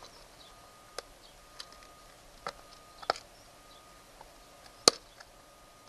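Scattered sharp plastic clicks and taps as a small clear plastic box of connectors is handled, about half a dozen in all, the loudest about five seconds in.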